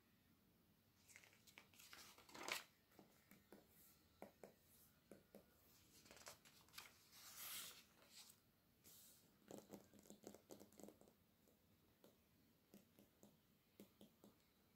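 Pages of a glossy printed catalogue being turned, with soft paper swishes and crinkles, the loudest about two and a half and seven and a half seconds in. These are followed by small scratches and taps of fingernails on the glossy pages.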